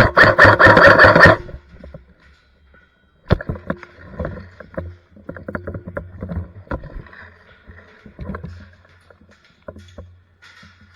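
Airsoft electric gun fired in one rapid burst lasting about a second and a half, the loudest sound here. Scattered clicks and knocks of gear and movement follow a few seconds later.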